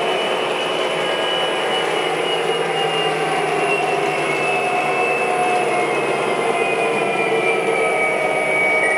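O-gauge model diesel locomotive running, its electronic diesel engine sound steady, with a high whine that slides slowly lower.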